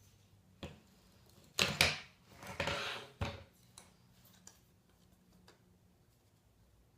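Hand cutters snipping thin sticks: a few sharp clicks and snaps, the loudest just under two seconds in, with a crunching stretch of about a second after it and a last snap soon after, then a few faint ticks.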